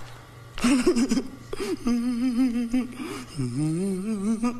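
A man's wordless voice from a film clip, making drawn-out, wavering vocal sounds that start about half a second in, with the pitch swooping down and back up about three and a half seconds in.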